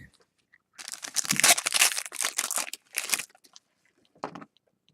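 Foil wrapper of a baseball card pack being torn open and crinkled: a dense crackling rustle lasting about two seconds, then a brief rustle near the end.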